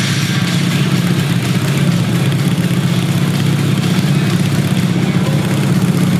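Motorcycle engine idling steadily, a low, even, rapidly pulsing running sound.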